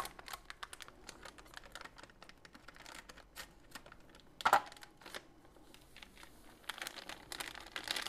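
Packet of instant mashed potato crinkling and rustling as it is handled and cut open with scissors, with one louder rip or snip about halfway through and the crinkling building again near the end.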